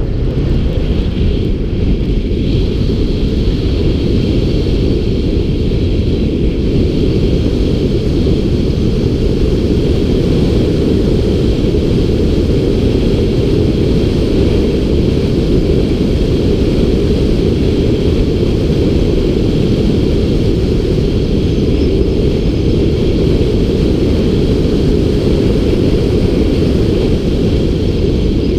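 Wind buffeting the microphone of a GoPro mounted outside a Toyota Tundra pickup as it drives a dirt road: a loud, steady low rumble, with the truck's running noise beneath it.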